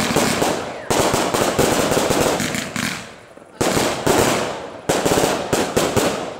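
Aerial firework shells bursting in quick succession, each bang followed by a dense crackling that dies away over a second or two. There are fresh bursts about a second in and again past the middle, with a rapid run of reports near the end.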